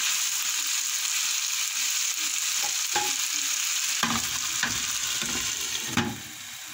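Peas and carrots sizzling in a frying pan as a wooden spoon stirs them, with a few light knocks against the pan. Near the end a glass lid goes on and the sizzle becomes quieter and muffled.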